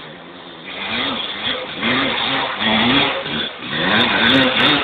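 Honda CR250 two-stroke motocross bike's engine revving up and down over and over as the rider works the throttle on a forest trail, getting louder as it comes closer.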